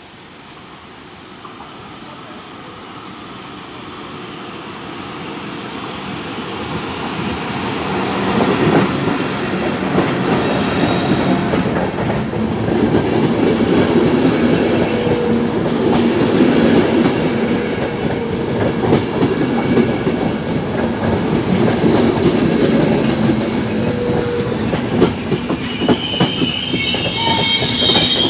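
Frecciabianca passenger train hauled by an E414 electric locomotive approaching along the platform track, growing steadily louder over the first several seconds. Its coaches then roll past, with the wheels clicking over the rail joints. A high wheel squeal sets in near the end.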